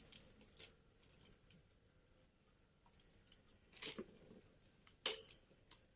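Light handling sounds of a cord and its plastic packaging: scattered soft rustles and small clicks, with a sharper click about five seconds in.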